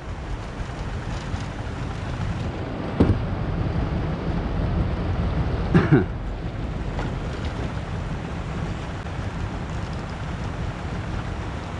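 Steady low wind rumble buffeting the microphone, with a sharp knock about three seconds in and a short voice-like sound about halfway through.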